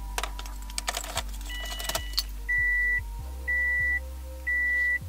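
Ignition keys jangling as a Subaru WRX's key is turned to on, followed by the car's warning chime beeping about once a second, three times, over a steady low hum as the freshly fitted fuel pump primes.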